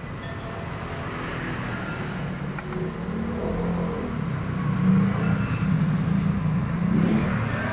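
A motor vehicle engine running close by amid road traffic noise, growing louder from about three seconds in. A single light click a little after two seconds.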